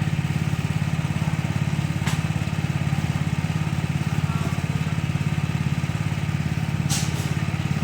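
Small engine-driven machine running steadily at constant speed, with a fast even pulse. A short sharp tick sounds about two seconds in, and another pair of ticks near the end.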